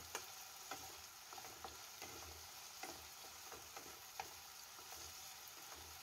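Potatoes, onions and spice paste frying in oil in a non-stick wok, with a faint steady sizzle. A spatula stirs them, scraping and tapping the pan lightly every second or so.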